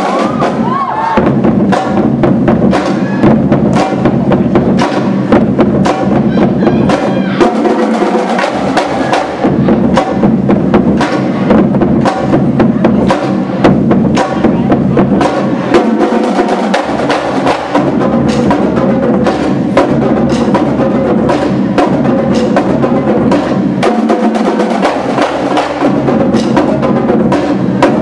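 A marching drumline playing together, with marching snare drums, multi-tenor drums and pitched marching bass drums. They play dense, rapid strikes without a break.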